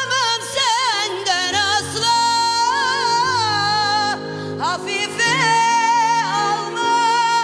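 A woman singing, with quick winding ornaments between long held notes, over sustained instrumental accompaniment.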